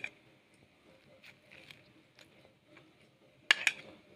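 Spoon spreading mayonnaise-and-ketchup sauce onto toasted burger buns: faint soft scrapes and ticks, then two sharp clicks of the metal spoon against the dish near the end.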